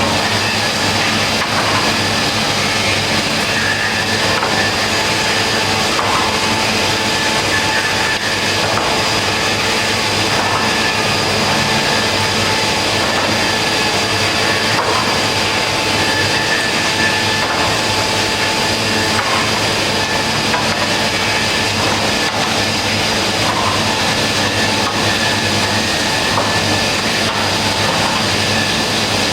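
Woodworking machine running steadily as it machines birch, a constant mechanical noise with a steady high whine.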